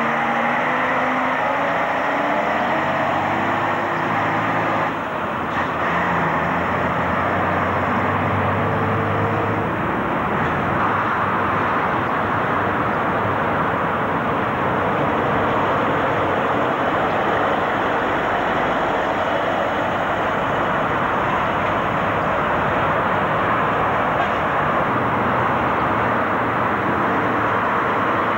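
Diesel lorry engines pulling away close by, the engine note climbing through the first few seconds, then settling into a steady, dense drone of lorry engines and traffic.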